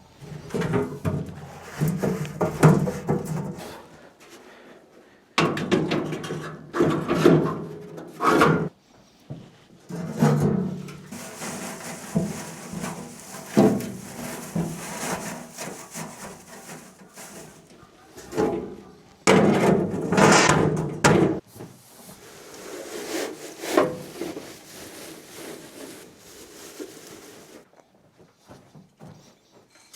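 Wood being handled, in bursts of knocking, rubbing and scraping with short pauses between them.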